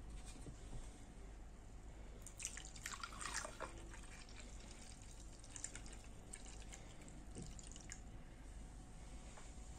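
Carrot, ginger and peach juice being poured into a glass, splashing and trickling: busiest about two and a half to three and a half seconds in, then scattered smaller splashes until about eight seconds in.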